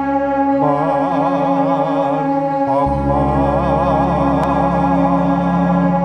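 Live music at a Javanese folk troupe performance: a steady, sustained drone of held tones. About a second in, a high melody with a strong, wavering vibrato comes in over it.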